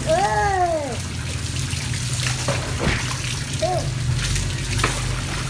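Running water, with a person's voice giving a short rising-and-falling exclamation at the start and a briefer one a little past the middle.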